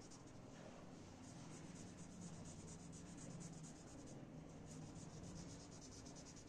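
Black marker scribbling on paper in quick back-and-forth strokes: a faint, rapid scratching that repeats steadily.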